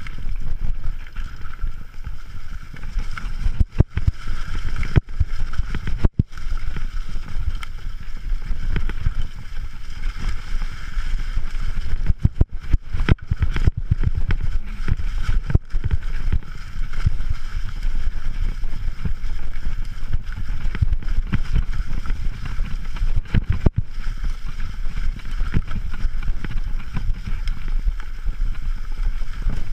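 Mountain bike ridden over a rough forest trail: steady wind rumble on the microphone, with the bike rattling and giving sharp knocks as it goes over bumps, several of them close together about halfway through.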